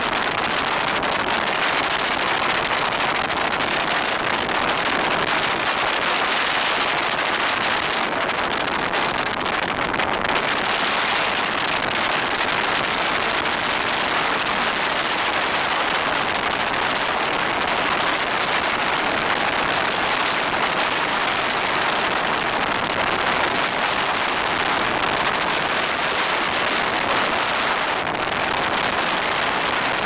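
Helicopter in flight heard from inside the cabin: a steady, even rush of engine, rotor and air noise with no change in level.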